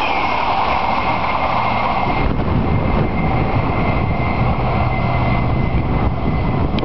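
Amtrak Northeast Regional passenger train rushing past at speed on steel rails and pulling away, with a thin steady whine over the rush. A low rumble comes up about two seconds in and carries on after the last car has gone.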